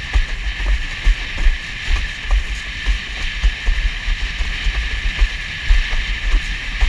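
Strong wind buffeting the microphone in a gusty rumble, over a steady rush of water and spray from a windsurf board planing across chop in a 20-knot wind, with irregular light knocks as the hull hits the waves.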